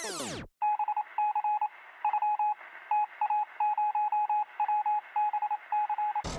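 A run of short electronic beeps at one steady pitch, some brief and some longer, in uneven groups like Morse code. They have a thin, narrow-band sound, as if heard over a telephone or radio line.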